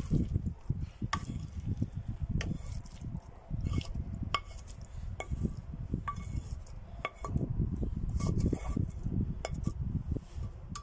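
Wooden spatula scraping and knocking fried onions and mushrooms out of a frying pan into a plastic bowl, with short ringing taps on the pan about once a second. Under it, a gusty low rumble of wind on the microphone.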